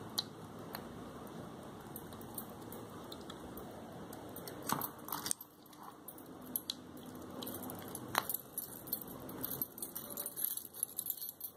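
Keys on a key ring jangling and the plastic shell of a car remote key fob clicking as it is handled and pressed back together, with a few sharp clicks around the middle and a run of small clicks near the end.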